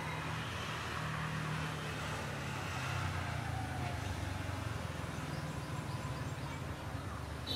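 Low, steady rumble of a running engine, with a faint hiss above it.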